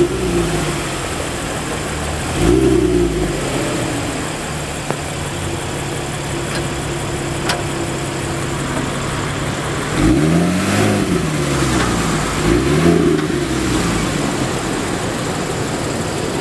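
Porsche Boxster Spyder's flat-six engine idling cold, blipped three times so the revs rise and fall quickly. Rain hisses steadily throughout.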